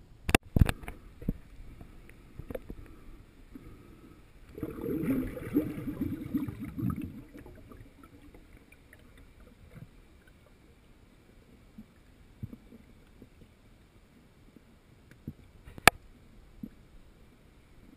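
Water gurgling and bubbling heard underwater through a GoPro's waterproof housing, a dense, muffled rush lasting about three seconds. A few sharp knocks on the housing come in the first second and one more near the end.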